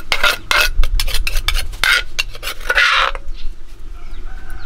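A metal spoon scraping and clinking against dishes in a run of quick strokes while food is served. It goes quieter about three seconds in.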